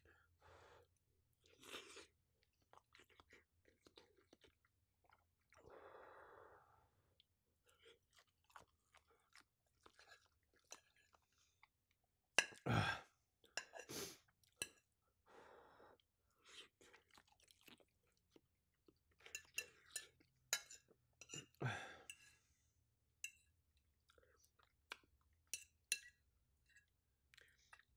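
Faint close-miked chewing and mouth sounds of someone eating a shrimp and cheese omelette, with scattered small clicks. There are a few louder sharp knocks about 13, 14 and 22 seconds in.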